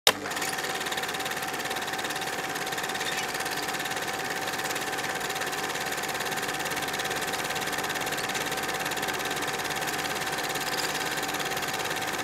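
Film projector running: a steady mechanical whir with a fast, even clatter and a steady hum, opening with a short click.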